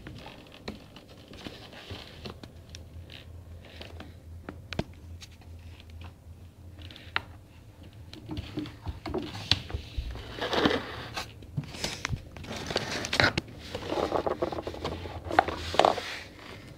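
Handling noise of a camera pushed and dragged along the floor in a tight gap under furniture: scattered clicks and knocks with rustling and scraping, growing louder and busier in the second half.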